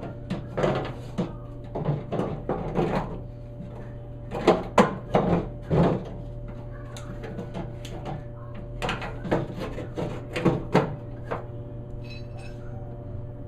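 Hand work on a Chevy C10 truck door's internal parts: clusters of sharp knocks and clunks as metal pieces are handled and fitted, in three bursts with pauses between. A steady hum runs underneath.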